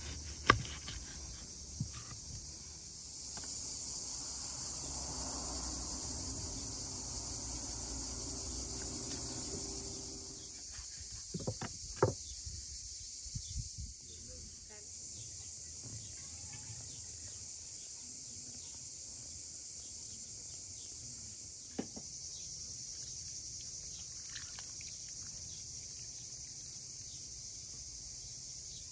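Insects chirring steadily at a high pitch, with a few sharp knocks of a knife on a wooden cutting board, the loudest about half a second in and a cluster around twelve seconds in. A low hum runs from about three to ten seconds in.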